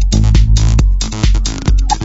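Old school electro/breaks track playing from vinyl in a DJ mix: a fast drum-machine beat of about four hits a second over heavy bass.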